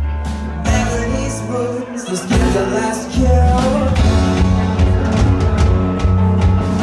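Live rock band playing a song, with singing. The band thins out briefly about two seconds in and comes back in full, louder, about a second later.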